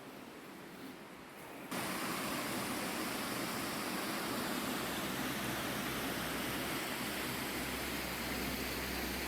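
Steady rush of running water that cuts in suddenly a little under two seconds in, replacing a faint hiss.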